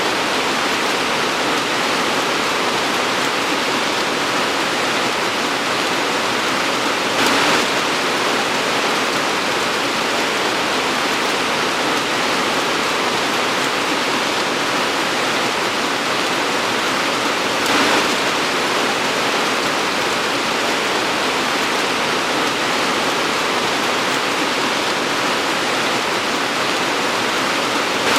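Torrential rain pouring down in a steady, dense hiss, swelling briefly twice.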